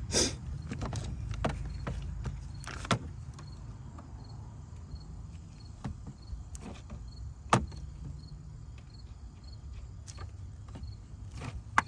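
A few sharp clicks and knocks from a hose line and its clips being handled and fitted in a car's engine bay, over a steady low hum.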